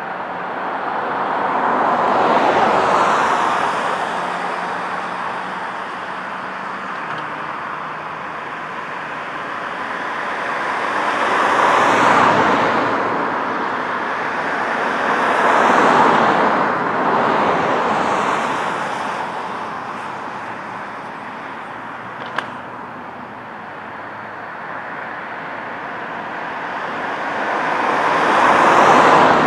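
Cars driving past close by on a two-lane road one at a time, their tyre and engine noise swelling and fading with each pass. Four go by: near the start, about twelve and sixteen seconds in, and at the end.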